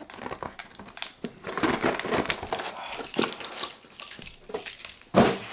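A key scraping and tearing through packing tape on a cardboard box, then cardboard rustling and scraping as a bottle is pulled out of it. A loud thump about five seconds in.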